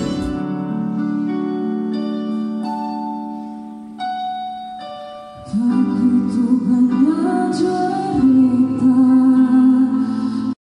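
Live pop ballad rehearsal: keyboard plays held chords that fade for about five seconds, then a female singer comes in over the accompaniment, louder. The sound cuts off suddenly just before the end.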